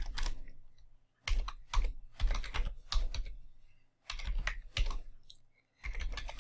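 Computer keyboard being typed on in several short runs of keystrokes, with brief pauses between the runs.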